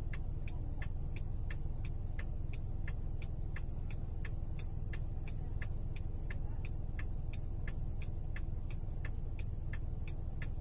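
Inside a car with the engine idling as a low steady rumble, a sharp regular ticking of about three clicks a second, typical of the indicator or hazard-light flasher.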